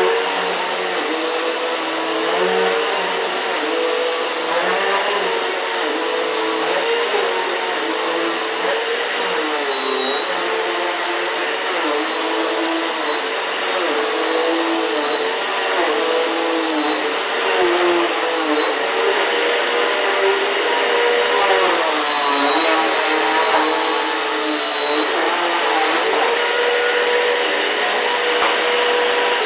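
Eureka PowerSpeed upright vacuum cleaner running, with a steady high motor whine and a lower hum that repeatedly dips and recovers in pitch as the load on the motor changes.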